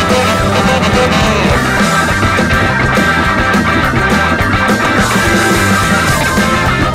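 Recorded band music: an up-tempo jump-blues and garage-rock number with saxophones playing held notes over a driving bass and drum rhythm.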